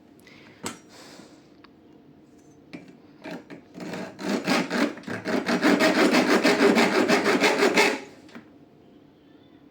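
A hand tool worked back and forth on a metal lock part clamped in a vise, making rapid, even rasping strokes about five a second, as the part is reshaped a little more. A few light clicks come first, and the strokes stop suddenly after about four seconds.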